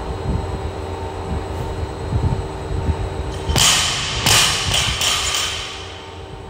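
A loaded barbell with bumper plates is dropped to the gym floor a little past halfway, followed by a few loud, sudden clattering bursts, over a steady fan hum.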